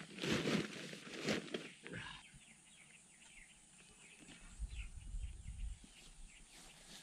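Rustling and knocking handling noise for the first two seconds, then birds chirping faintly in the background, with a low rumble about two-thirds of the way through.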